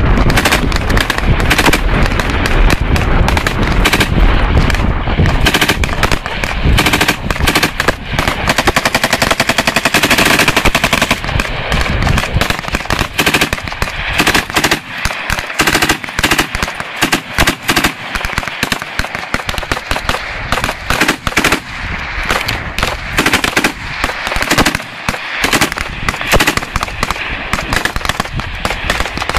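Belt-fed machine gun firing repeated bursts, with one long continuous burst about ten seconds in and shorter, more broken bursts after it.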